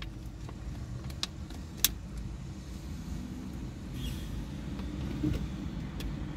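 Car cabin noise while driving slowly in town traffic: a steady low engine and road rumble, with a couple of sharp clicks or rattles from inside the car.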